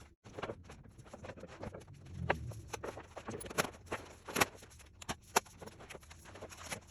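Scattered light knocks and clicks, about half a dozen, irregularly spaced, with a faint low rumble about two seconds in: handling noise from work on a trailer part.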